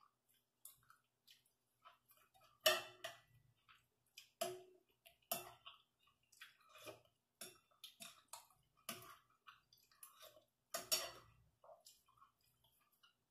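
Quiet eating sounds: irregular short clicks and smacks as someone eats sticky rice by hand, dipping it into a plate of mushroom soup, with a louder one about three seconds in and another near the end.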